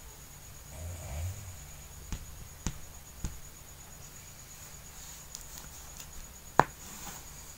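Fingertip taps on a Samsung Galaxy Z Fold's screen, three light clicks about half a second apart, then one sharp, much louder click near the end as the foldable phone is closed.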